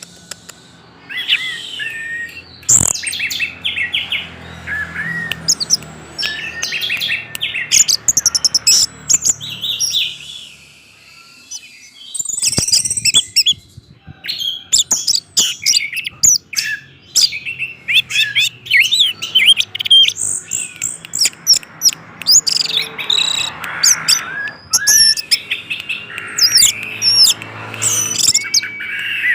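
Orange-headed thrush singing in long runs of quick, varied chirps and whistles, with a short lull about ten seconds in.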